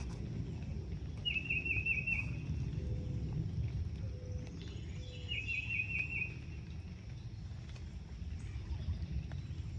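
A small bird sings twice, each phrase a quick run of about five identical chirps, over a steady low rumble.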